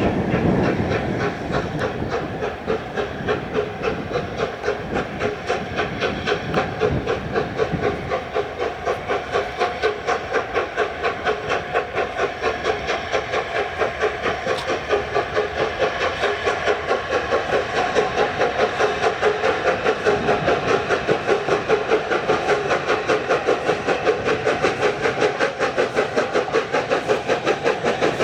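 Steam locomotive working, its exhaust beating in a quick, even rhythm of about four to five chuffs a second, with steam hiss between the beats.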